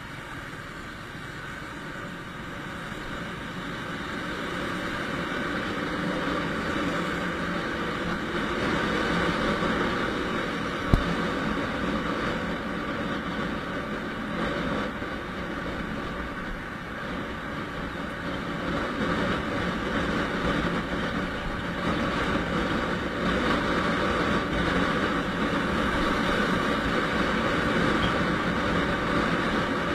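Motorcycle riding along a highway: a steady rush of wind and road noise with the engine's drone under it, growing louder over the first several seconds as speed builds. A single sharp knock about eleven seconds in.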